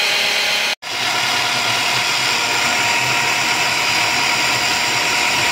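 Polaris hand blender with its chopper bowl running at speed, pureeing cooked lentils with onion and cilantro into a mash. The motor cuts out for an instant under a second in, then runs on steadily.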